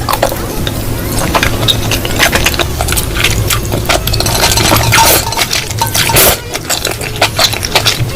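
Close-miked mukbang eating sounds: a dense, irregular run of crisp clicks and crunches from chewing and handling food, over a steady low hum.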